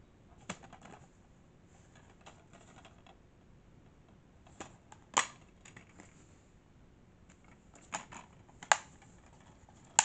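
Plastic DVD case being handled and opened: scattered sharp plastic clicks and rattles, the loudest about halfway through and again near the end.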